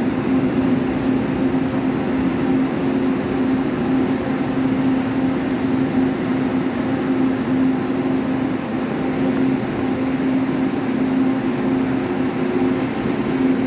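Orange-and-cream Taiwan Railways Chu-Kuang express coaches rolling slowly along the platform: a steady rumble with an unbroken low hum.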